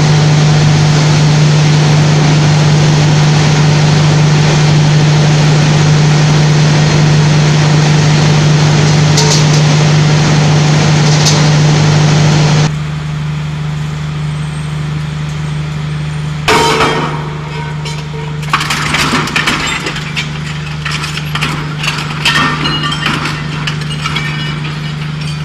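Heavy recycling-plant machinery running with a loud steady hum and low drone, which cuts off abruptly about halfway through. Then a twin-shaft metal shredder runs more quietly, its hook-bladed rotors giving irregular sharp cracks and clinks as scrap metal is torn apart.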